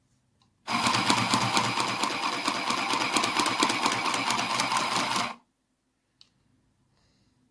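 Singer handheld sewing machine running for about four and a half seconds, its needle stitching through fabric in a fast, even clatter, then stopping. A single small click follows.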